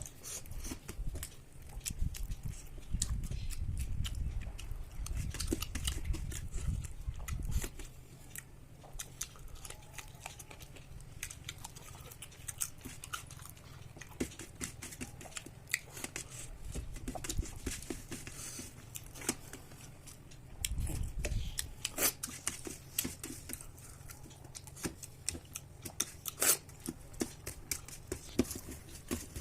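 A person eating rice and curry by hand: chewing and mouth smacks with many small clicks and taps, and a low rumble for several seconds near the start and again briefly about two-thirds of the way through.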